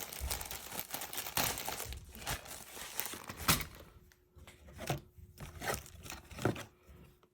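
Plastic bags of model-kit parts crinkling as they are handled, dense for the first few seconds, then giving way to a few light plastic clicks and taps.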